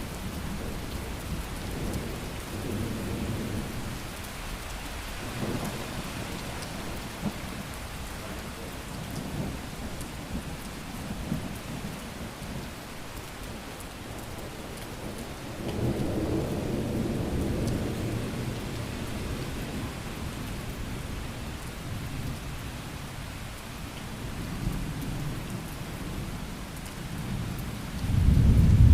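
Steady rain falling, with low thunder rumbling under it. One rumble swells up a little past halfway through, and a louder one starts near the end.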